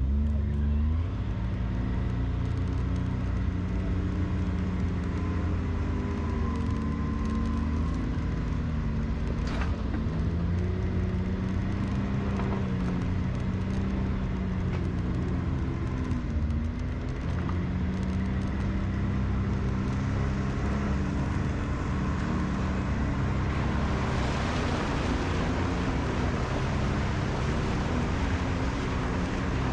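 Side-by-side UTV engine running under changing throttle, its pitch rising and falling as it drives a rough dirt trail. In the last several seconds a splashing hiss of water joins it as it drives into a shallow creek.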